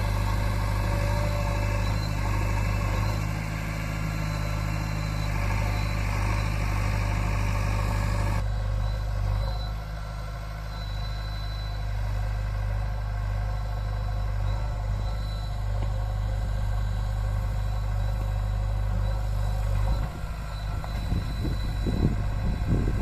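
Heavy diesel engine of earthmoving machinery running steadily. About 8 seconds in, the higher part of the sound drops away abruptly. Over the last few seconds, uneven rumbling knocks come in over the drone.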